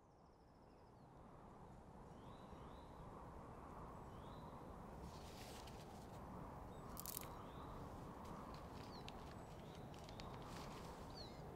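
Outdoor ambience fading in: steady low background noise with a few faint bird chirps and a couple of brief crackles around the middle.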